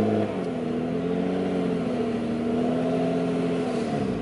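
Nissan Skyline R32 engine heard from inside the cabin as the car is driven slowly under light throttle. The revs dip just after the start, hold steady, then drop away near the end.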